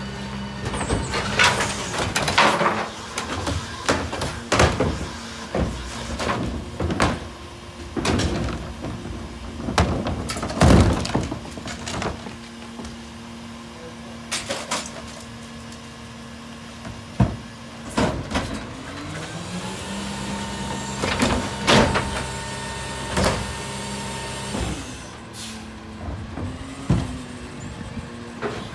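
Idling New Way rear-loader garbage truck with its hydraulic cart lifters tipping plastic carts into the hopper: a steady engine hum under repeated bangs and clatter of carts and falling trash. About eighteen seconds in, the hum climbs in pitch and then holds steady.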